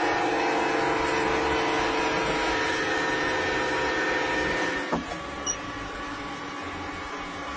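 Hydraulic press running with a steady hum of several held tones as the ram crushes a crumbly object. A short sharp crack comes about five seconds in, after which the running sound is quieter.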